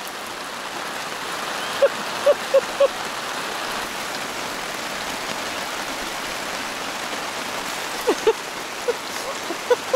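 Steady heavy rain falling on a tarp overhead, with a few short, louder plinks: four around two seconds in and several more near the end.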